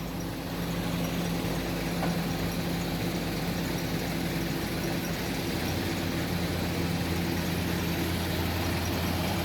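Heavy machine's diesel engine running steadily, with a deeper hum joining about five and a half seconds in.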